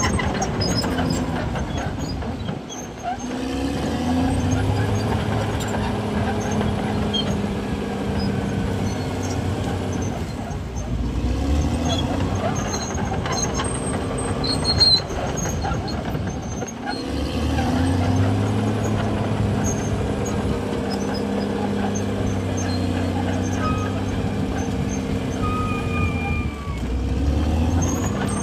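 CAT D6R bulldozer's diesel engine working under load, pulling steadily for several seconds at a time and briefly easing off and picking up again about four times.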